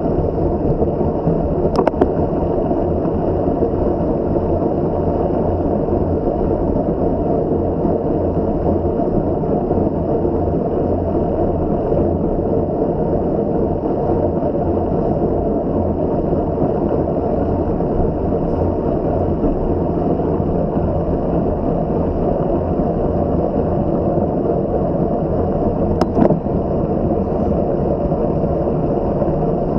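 Steady rush of wind and tyre noise from a bicycle riding at race speed, heavy and low on the microphone. Two sharp clicks cut through it, about two seconds in and again near the end.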